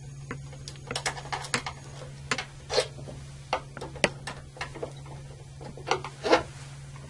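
Irregular clicks, taps and scrapes of a Phillips screwdriver and small screws on the plastic front cover of an Eaton Series NRX air circuit breaker as the cover screws are taken out. Two longer scrapes stand out, near the middle and near the end, over a steady low hum.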